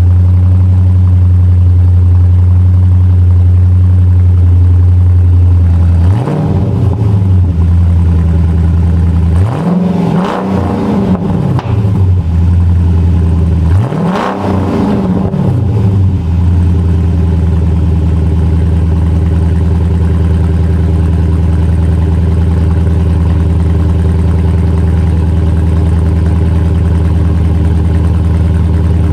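Dodge Challenger SRT8's Hemi V8 idling steadily, heard from its exhaust tip, and revved three times, about six, ten and fourteen seconds in; each rev rises and falls in pitch before settling back to idle.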